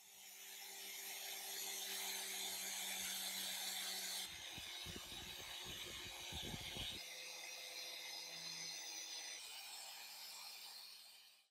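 Angle grinder with a felt buffing pad running at speed, polishing a rusty steel tanto blade with polishing compound: a steady motor hum under a bright hiss of the pad on the steel. The sound changes abruptly twice, with a rougher, rumbling stretch in the middle.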